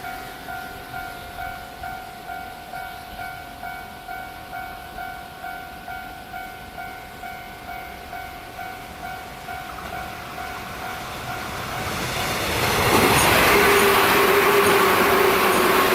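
Japanese railway level-crossing alarm ringing steadily at about two strokes a second. Near the end a train comes up and passes loudly, its noise swamping the alarm.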